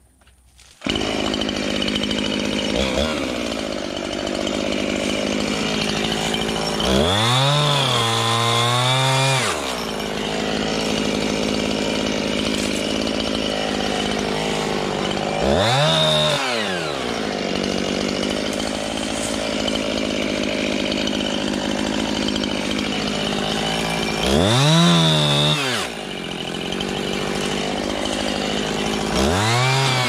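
A two-stroke chainsaw starts abruptly about a second in and runs at a steady idle. It is throttled up four times, each a rising then falling whine, as it cuts through a small elm sapling.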